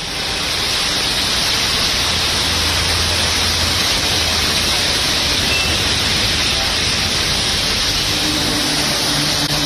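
Heavy rain pouring down steadily, an even hiss, with a faint low hum underneath for a second or two near the middle.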